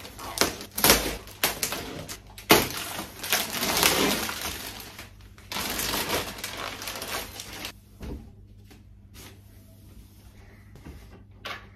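Clear plastic packaging crinkling and crackling as a crib mattress is pulled out of its bag and handled, with many sharp crackles. It dies down to faint rustling about eight seconds in.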